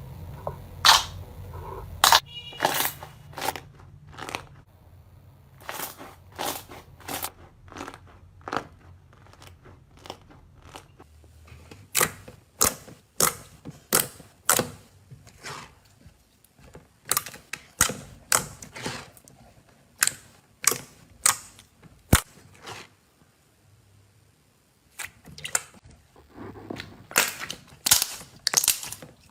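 Slime being squeezed and poked by hand, giving a run of sharp clicks and pops at irregular intervals.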